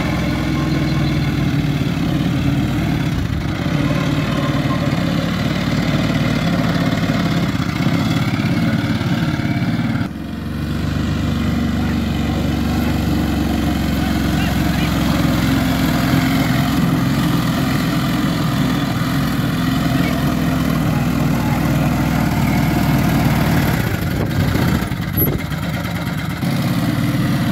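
Quad bike engine running steadily as it is ridden across sand.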